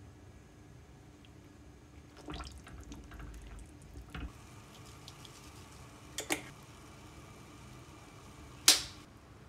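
Cooking sounds at a pot of leeks simmering in water: faint liquid bubbling, a ladle moving in the pot with small clicks, two quick sharp clicks about six seconds in, and one sharp knock, the loudest sound, near the end.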